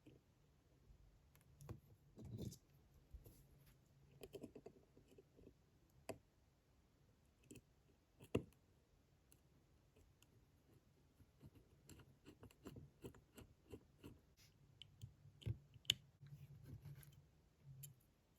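Faint, irregular small clicks and taps of watchmaker's tools handling the parts of a pocket watch movement, with sharper clicks about eight seconds in and again near sixteen.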